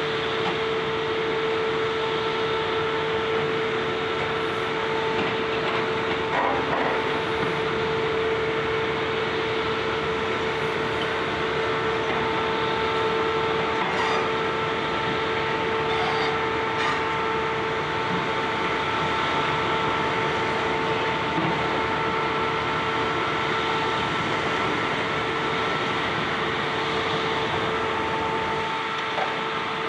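High-reach demolition excavator running steadily, its engine and hydraulics giving a constant whine over a dense mechanical noise, with a few short cracks of debris breaking around the middle.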